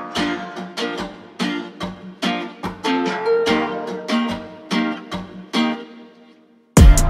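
Background music: evenly repeated plucked-string chords, about two a second, fading out near the end. Just before the end a louder track with a drum beat cuts in.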